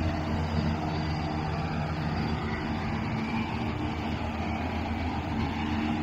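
John Deere tractor engine running steadily under load as it pulls a Gehl pull-type hay mower through the field, with the mower's drive running behind it.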